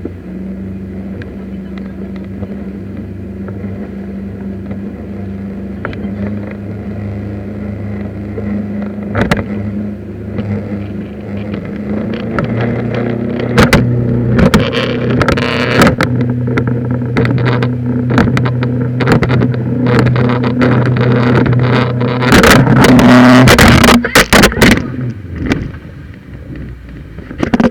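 Motorboat engine running steadily, stepping up in pitch and loudness about twelve seconds in as the boat speeds up. Loud noisy bursts come over it through the second half, and it eases off near the end.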